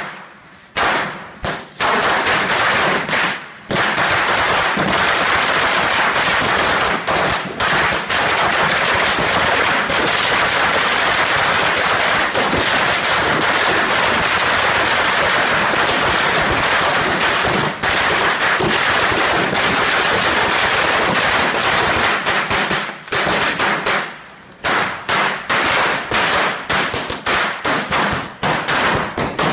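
A string of firecrackers going off on the ground: one sharp bang, then an unbroken rapid rattle of cracks for about twenty seconds. A short lull comes about three quarters of the way through, then more quick cracks follow.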